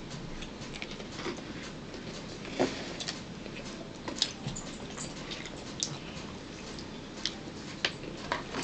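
People eating at a table: quiet chewing and mouth noises with scattered small clicks of a spoon against a plastic bowl, a dozen or so soft ticks spread through the few seconds.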